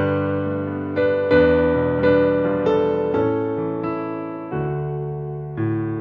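Solo piano playing slow, held chords, each new chord struck about once a second and left to ring and fade.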